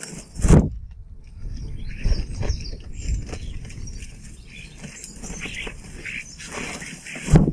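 Close scrabbling, pattering and clicking of birds or a squirrel moving about on a garden feeder, with two loud thumps, one about half a second in and one near the end, and faint bird chirps.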